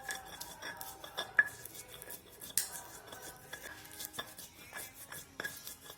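Light, scattered clinks and taps of kitchen utensils against bowls and dishes, some ringing briefly, as spices are handled for grinding.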